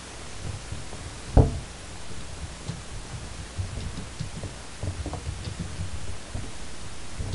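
Soft irregular taps and knocks from typing and clicking at a computer, heard muffled over a steady microphone hiss. A sharp knock comes about a second and a half in, then a run of light taps, and another knock at the very end.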